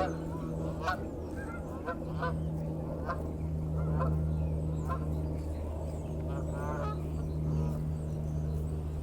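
Farmyard fowl giving short honking calls, repeated every second or so, over a steady low hum.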